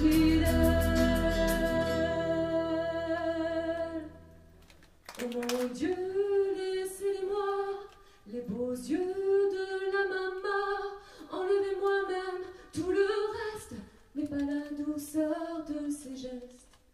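Accompaniment holding a sustained chord over a ticking beat, fading out about four seconds in. After a short pause a woman's voice sings phrases of the song unaccompanied into a microphone, with brief breaths between the lines.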